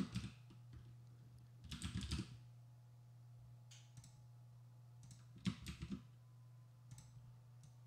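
Faint computer keyboard typing and mouse clicks: a short burst of keystrokes about two seconds in, a few single clicks, and another quick cluster of clicks about five and a half seconds in.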